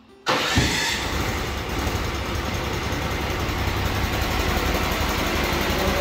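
Portable bandsaw sawmill's gasoline engine comes in suddenly about a third of a second in and then runs steadily.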